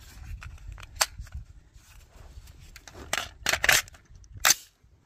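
Metallic clicks and clacks of an AR-15-style rifle being handled and loaded with a single round: one sharp click about a second in, then a cluster of louder clacks between about three and four and a half seconds in.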